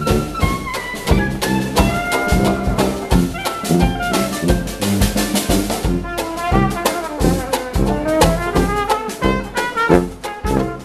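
Dixieland jazz street band playing live: trumpets lead, with saxophone and banjo, over a steady beat of about two strokes a second.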